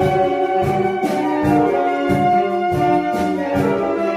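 A large saxophone ensemble with clarinets playing, holding sustained chords over a pulsing low line.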